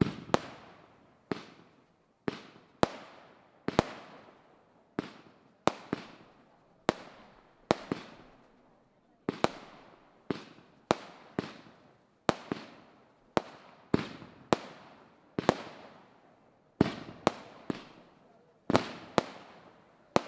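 Fireworks display: a quick run of sharp bangs, about one or two a second, some in close pairs, each echoing away. Near the end three come in fast succession.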